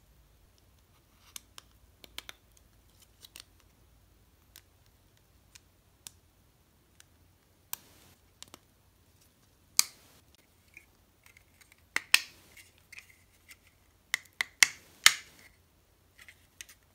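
Hard plastic model-kit parts, including a clear plastic flame piece, clicking and tapping as they are handled. The irregular sharp clicks are sparse in the first half and more frequent and louder in the second half.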